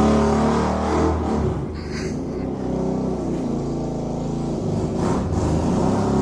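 A car engine running, its pitch dropping about a second and a half in and rising again near the end.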